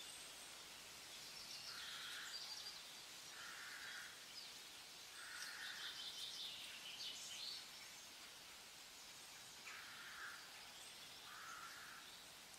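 Faint outdoor ambience: a steady hiss with short, rough animal calls repeating five times, a second or several apart, and some higher chirps in the first half.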